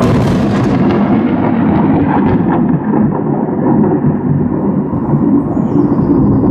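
Thunder from a close lightning strike: a sudden sharp crack, crackling for the first couple of seconds, then a long, loud low rumble.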